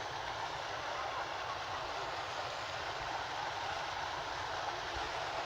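Waterfall water rushing in a steady, even roar of noise.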